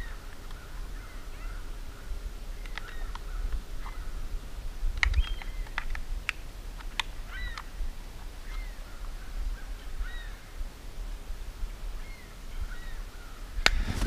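Crows cawing now and then over a low rumble, with a few sharp clicks from handling cooking gear around the middle.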